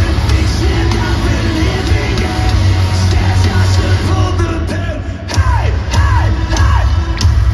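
Metalcore band playing live at stadium volume: distorted guitars, heavy bass and drums with shouted vocals, recorded close to the PA so the low end is overpowering. About five seconds in the music thins briefly, then comes back with three swooping notes.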